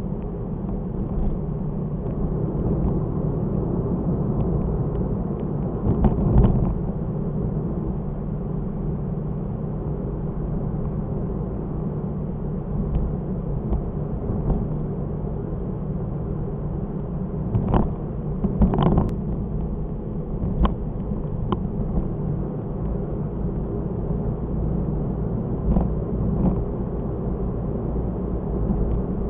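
Car driving, recorded by a dashcam: a steady rumble of engine and road noise, with a few short knocks scattered through it, the loudest about six seconds in and around eighteen to nineteen seconds.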